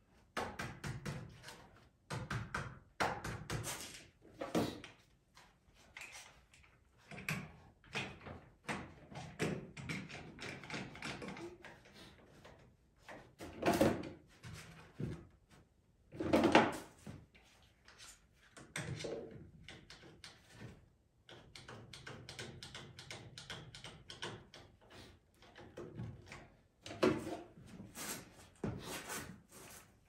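Irregular knocks, clunks and clatter of timbers, bar clamps and hand tools being handled while a wooden sawbuck frame is assembled, with a few louder thumps, the loudest past halfway.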